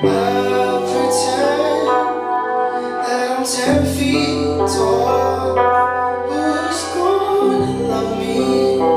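Live band playing an instrumental passage of an Americana/R&B song, with guitar over sustained bass notes that change about four seconds in and again near the end.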